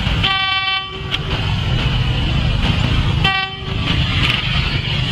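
Two short blasts of a single-note horn, about three seconds apart, from the Bathara Kresna railbus as it comes along its street-running track, warning the road traffic beside it. A steady low rumble of engine and traffic lies underneath.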